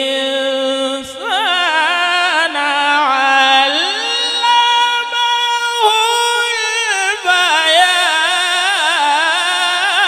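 A qari's voice in melodic Quranic recitation, drawing out long notes with wavering ornamented runs and climbing to a long high held note in the middle.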